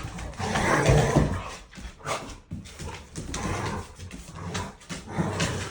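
A dog making noises while it plays, in irregular bursts with short pauses, loudest about a second in.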